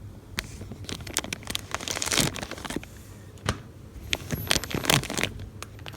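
A cat snoring in its sleep, with crackly, rattling breaths. Two louder breaths come about 2 and 5 seconds in.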